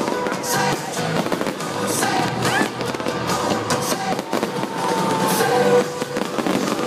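Fireworks bursting and crackling in repeated sharp bangs over pop music.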